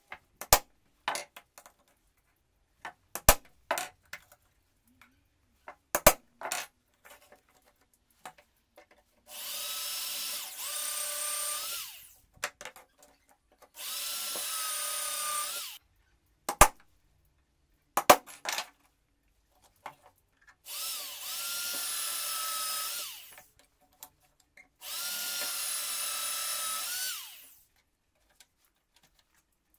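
Electric drill boring holes through an aluminium angle strip into wood: four runs of two to three seconds each, a steady whine under load that bends in pitch as the drill starts and stops. Between the runs come sharp clinks and knocks of the metal strip and tools being handled.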